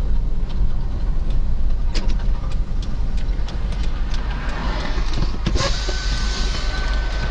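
Car cabin noise as heard by a dashcam: steady engine and tyre rumble on the road, with a few light clicks. About two-thirds of the way in, hissy noise picks up and a faint steady whine begins.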